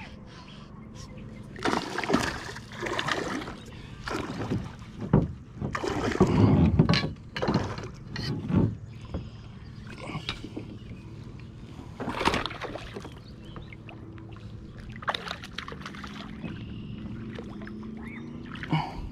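Irregular splashing and knocking as a hooked fish is netted into a plastic kayak: water splashing at the net, and rod, net and gear bumping the hull in scattered bursts.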